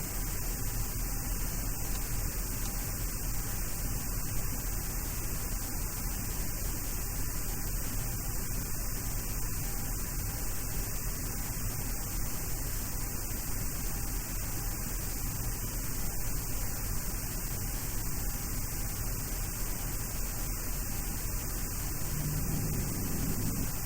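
Steady hiss and low hum of a Boeing 737-800 cockpit with the aircraft on the ground before its takeoff roll. A low rumble grows slightly near the end.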